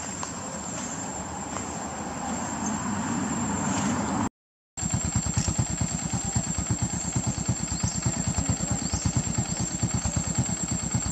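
A small engine idling nearby with a fast, even pulse, picking up after a brief cut-out about four seconds in. Before the cut, a rougher drone grows louder.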